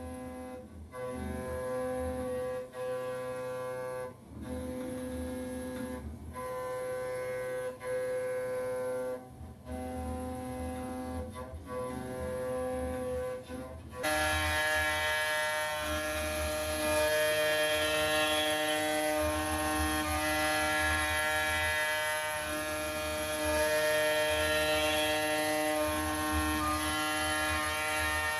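CNC router spindle and end mill cutting grade 5 titanium (Ti-6Al-4V): a steady singing whine with many overtones, broken by short dropouts every second or two. About halfway through it changes abruptly to a louder, denser tone.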